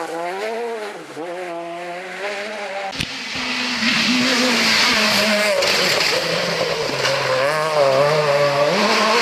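Rally car engines revving hard and changing pitch with the throttle and gear changes, first a Peugeot 208. About three seconds in, a sudden cut switches to another car, louder and at higher revs, with more road and tyre hiss.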